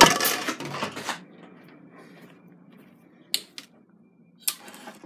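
Household objects being handled and set down on a tabletop: a noisy clatter and rustle in the first second, then quieter handling with two sharp clicks later on.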